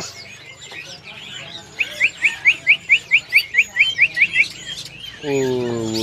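Caged songbird singing a fast run of about a dozen short rising whistled notes, some five a second, over the faint chirps of many other birds.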